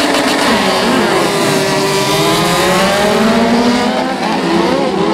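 A field of midget race cars accelerating away from a race start, several engines revving hard together, their pitches rising and bending over one another.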